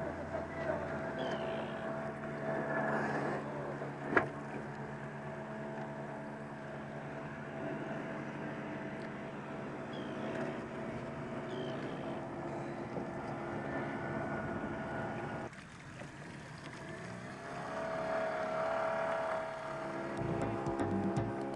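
Outboard motor running steadily, a hum with several steady tones. A single sharp knock about four seconds in, and near the end the engine note drops briefly, then glides up again.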